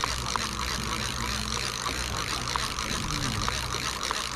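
Boat engine running steadily as a low drone, under a constant hiss of wind and water.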